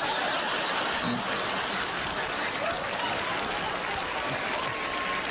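Studio audience applauding and laughing after a punchline, a steady wash of clapping throughout.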